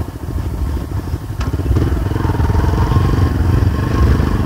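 Motorcycle engine running while riding, with its pitch holding steady from about two seconds in and a single knock about a second and a half in.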